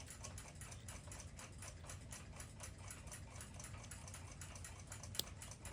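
Jeweled clock movement of a 1949 German flip clock ticking steadily, about five ticks a second. One sharper click comes near the end.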